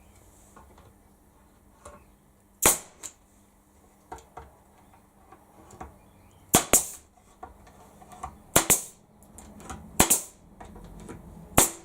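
Nailing timber boards together: about seven sharp knocks, some in quick pairs, a second or two apart.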